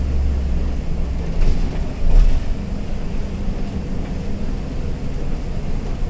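Steady low drone of a bus engine and tyres on a wet road, heard from inside the cabin. Two short knocks come about one and a half and two seconds in.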